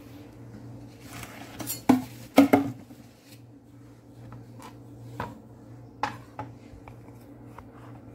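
Kitchen utensils knocking and clinking on a countertop: a cluster of sharp clatters about two seconds in, then a few lighter taps, as a cutting board and knife are set out. A steady low hum runs underneath.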